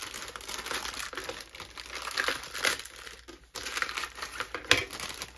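Clear plastic packaging bag crinkling as it is worked open and a plastic tray kit is pulled out of it, with one sharper crackle near the end.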